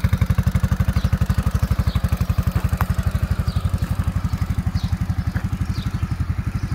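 Kymco Xciting 400i maxi-scooter's single-cylinder four-stroke engine idling steadily, with an even, rapid exhaust pulse.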